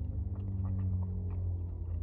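Close-up chewing and eating of noodles: scattered wet mouth clicks over a steady low hum.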